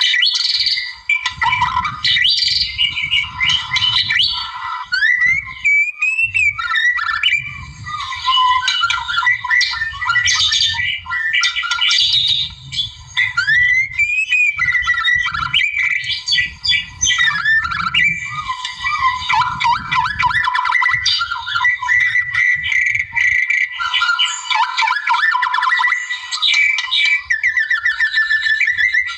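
A white-rumped shama singing without pause, a rich, varied run of clear whistles, sliding notes and rapid trills. A low rumble sounds underneath at times.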